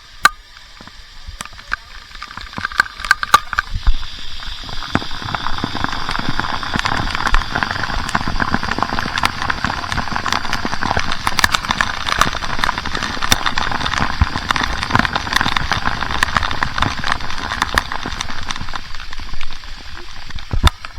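Churning waterfall water heard right at the microphone: a dense, crackling rush full of sharp pops, with a few knocks in the first seconds, building up about four seconds in and holding steady.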